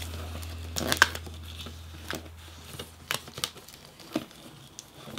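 Fingers picking and scratching at the plastic seal on a cardboard box, a few short crinkles and scratches spaced about a second apart.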